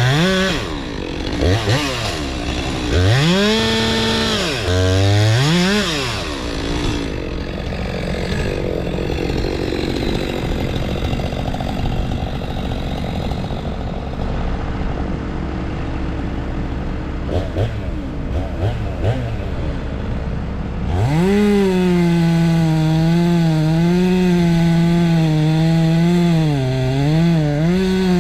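Stihl MS 462 C two-stroke chainsaw revved in a few quick rising-and-falling blips, then running lower and rougher for about fifteen seconds. From about two-thirds of the way in it is held at high revs, its pitch wavering slightly.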